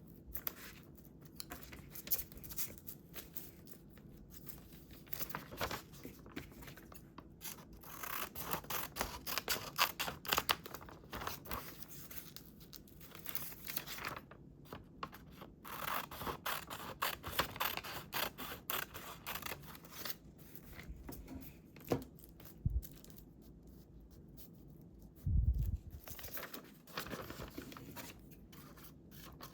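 Scissors cutting paper in runs of quick snips, with pauses between the runs, and one dull low thump a few seconds before the end.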